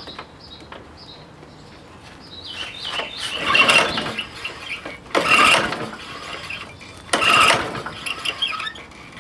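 Honda HR214 lawnmower's recoil starter rope pulled three times, each pull a brief whirring crank of the engine about two seconds apart. The engine turns over without catching.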